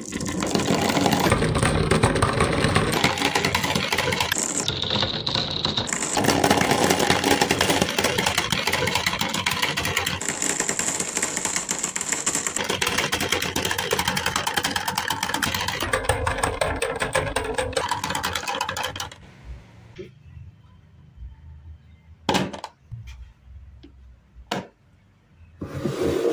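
Dozens of marbles rolling and clattering together down wooden marble-run tracks, a dense, continuous rattle of clicks. After about nineteen seconds it thins to a few single clicks as the last marbles run out, and a fresh rattle starts right at the end.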